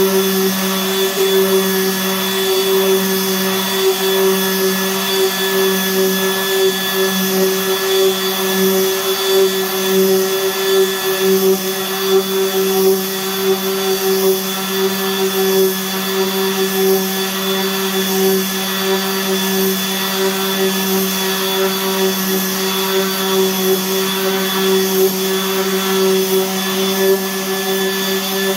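Electric power sander running steadily on a raw wood door, worked back and forth under light hand pressure: a constant motor hum over a sanding hiss, with small rises and falls in loudness as the pressure shifts.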